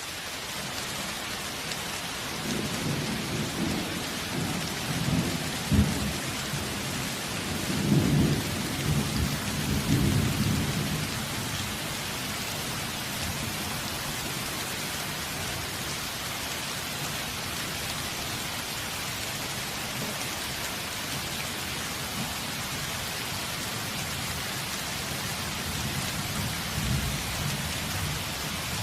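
Steady rain falling, an even hiss, with rolls of thunder. The thunder is loudest in the first third and comes back fainter near the end.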